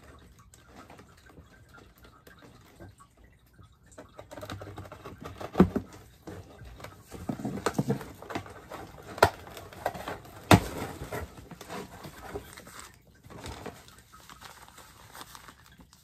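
Hands rummaging in a cardboard shipping box, rustling and crinkling packing material, with three sharp knocks against the box partway through. It starts after a quiet few seconds and dies down near the end.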